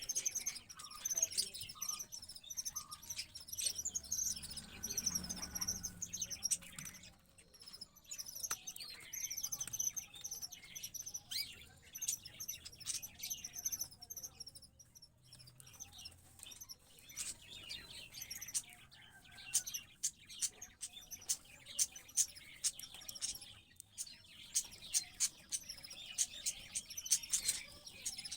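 Small birds chirping and cheeping in quick high-pitched runs, with a dense flurry of short sharp cheeps near the end: a canary and the Eurasian tree sparrow chick it is feeding.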